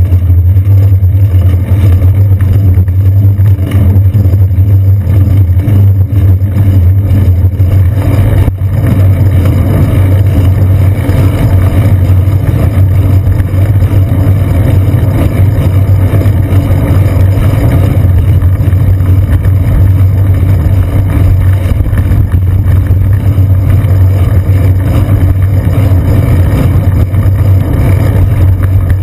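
Loud, steady low rumble of a bicycle riding along a wet city street, picked up by a GoPro Hero 2 mounted on the seat post: road vibration and wind on the camera.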